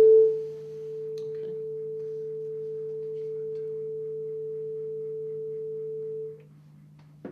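Steady 440 Hz pure tone from a speaker sounding through a telescoping cardboard resonance tube. Its loudness falls sharply just after the start as the tube is slid away from a resonant length, then holds steady until the tone cuts off about six seconds in.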